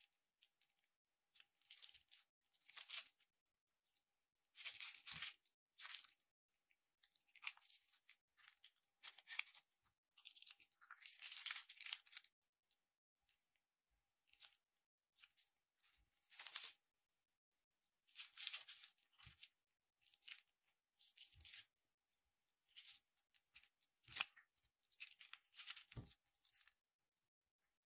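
Faint crinkling and rustling of a clear plastic piping bag filled with red glitter slime as it is handled, in short scattered bursts with pauses between.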